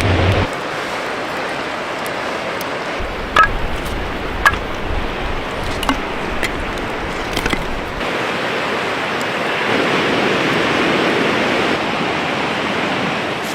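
River water flowing steadily, with a few sharp clicks about a third of the way in.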